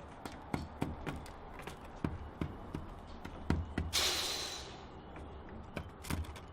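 Birds pecking seeds on a pergola roof: irregular sharp taps, several a second. About four seconds in, a brief rushing hiss that fades within a second.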